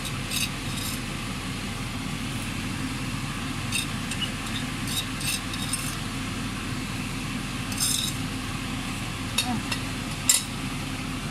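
Gas stove burner giving a steady low rush under a pot of thick soup at a simmer, with scattered soft pops and clicks, the sharpest about eight and ten seconds in.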